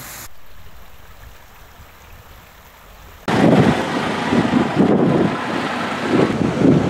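Low rushing of water that fades over the first three seconds, then an abrupt cut to loud, gusty wind buffeting the microphone.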